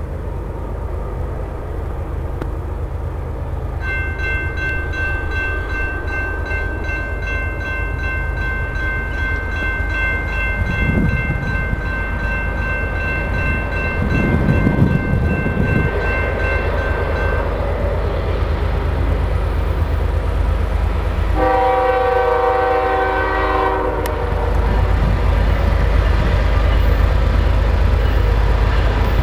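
Canadian Pacific diesel freight locomotive approaching with a steady low engine and rail rumble. A high steady ringing runs through much of the first half. About three quarters of the way through comes one horn blast of about two and a half seconds, which cuts off abruptly.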